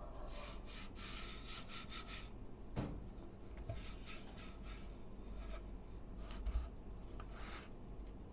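Monsgeek M1W mechanical keyboard with Gateron Milky Yellow linear switches being typed on in three quick bursts of key clacks, with two duller thumps between them.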